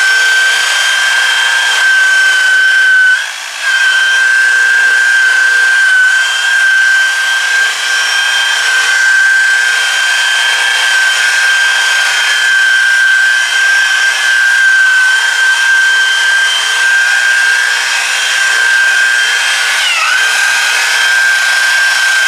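Electric variable-speed buffer (rotary polisher) with a wool pad spinning against car paint, buffing compound on a body panel. It gives a steady high motor whine that drops out briefly about three seconds in and dips in pitch for a moment about twenty seconds in.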